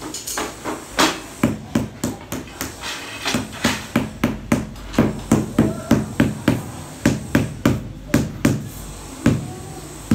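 Rubber mallet tapping a large floor tile down into its mortar bed, bedding it level with the neighbouring tile. A quick run of dull knocks, about two or three a second, with short pauses between bursts.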